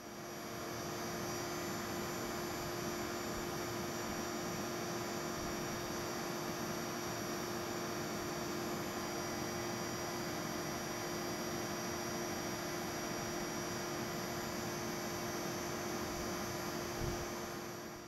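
Two Daikin E-series inverter air-conditioner outdoor units running side by side with their casings removed, propeller fans turning: a steady whooshing run with a steady hum tone, fading in at the start.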